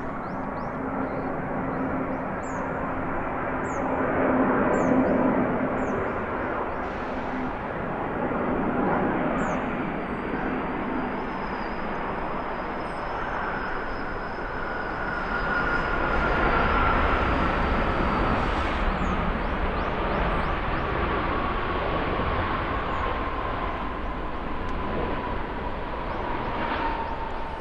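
Airbus A350-941 airliner's Rolls-Royce Trent XWB jet engines roaring as it goes by, with a whine that slowly falls in pitch through the second half. The roar swells twice, with a deep rumble at its loudest.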